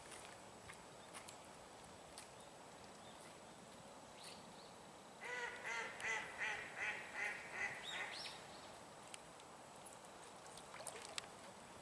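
A bird calling a quick run of about nine harsh, quacking calls, around three a second, for about three seconds starting some five seconds in.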